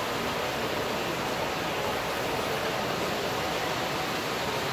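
Steady, even background noise of a large indoor hall, like ventilation hiss, with no distinct sounds standing out.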